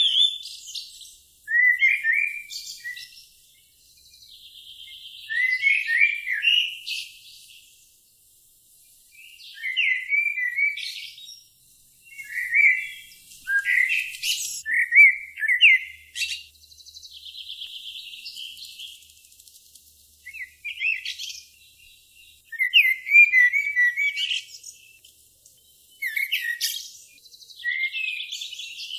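Songbirds singing: short, quick phrases of chirps every few seconds, with a thinner buzzing trill between some of them.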